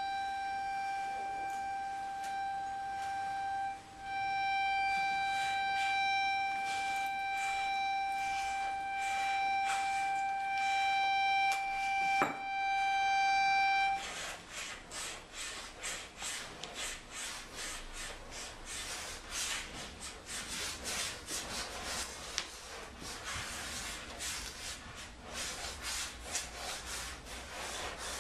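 Piano accordion holding one sustained high note, briefly breaking off about four seconds in, with scattered tap-shoe taps over it. About fourteen seconds in the note stops and a fast, dense run of tap-shoe taps takes over.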